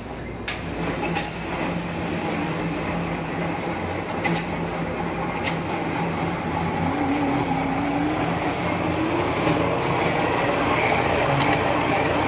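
Immersion blender running steadily with a motor hum, its blade churning roasted tomatoes, peppers and onion in a tall plastic container into a purée. It grows slightly louder as the mixture smooths out, with a few faint clicks.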